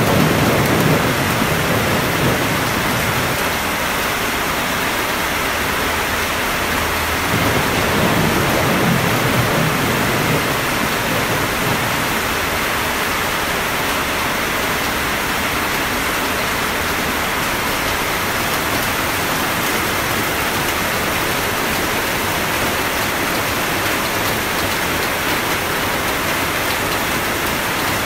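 Steady rain hissing throughout. A low rumble of thunder fades away in the first moments, and another distant rumble swells and dies away about a third of the way through.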